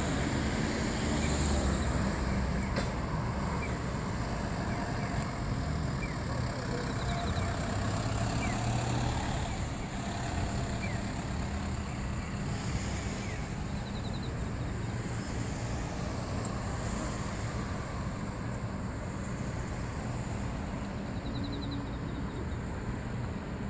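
Road traffic: cars passing on a city street, a steady roar of tyres and engines with a low rumble, a little louder in the first ten seconds.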